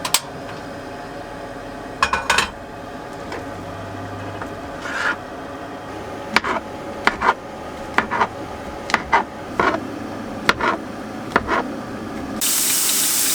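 A spatula scraping and knocking in a frying pan as fried rice with vegetables and tofu is stirred: a run of short scrapes and taps. Near the end a steady hiss begins.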